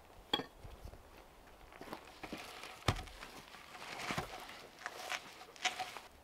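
Footsteps and rustling on dry leaf litter and wood chips, with a few sharp wooden knocks as hand tools and a log are moved about; the loudest knock comes about three seconds in.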